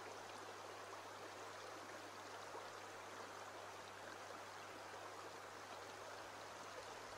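Shallow stream flowing over a pebble bed: a faint, steady rush of water.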